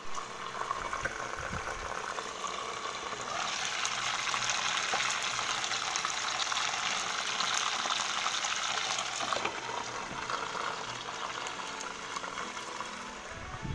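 Lapu-lapu (grouper) pieces sizzling as they fry in hot oil in a pan, a steady hiss that grows louder and brighter for several seconds in the middle while the lid is off.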